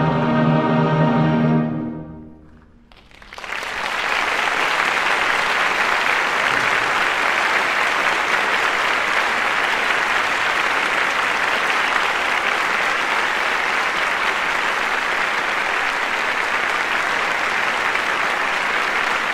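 Choir and orchestra hold a final chord that cuts off about two seconds in. After a moment's silence, a concert-hall audience breaks into applause that runs on steadily.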